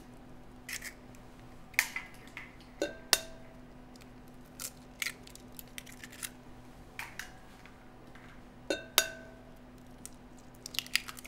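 Eggs being cracked on the rim of a glass mixing bowl: scattered sharp taps and clicks of shell, the two loudest about three seconds and nine seconds in, each making the glass ring briefly.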